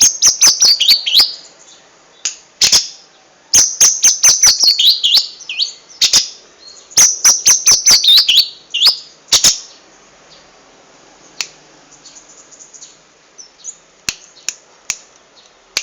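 Long-tailed shrike singing rapid-fire bursts of mimicked lovebird, canary and bar-winged prinia song: fast runs of sharp, high falling notes and clicks in several loud bouts, then only soft scattered chirps over the last six seconds.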